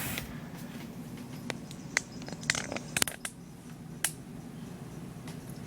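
Irregular light clicks and taps of hands handling the opened stereo receiver's chassis and parts, about half a dozen sharp ticks spread over the few seconds.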